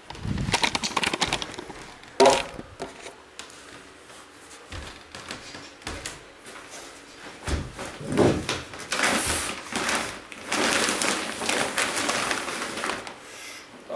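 Plastic bags and stored items rustling and shifting as they are rummaged through by hand, with a sharp knock about two seconds in and heavier rustling near the end.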